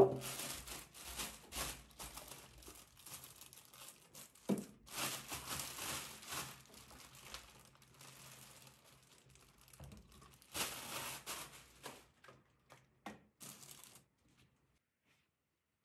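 Plastic film or sheet crinkling and rustling as it is handled, in three irregular bursts, with a sharp knock at the start.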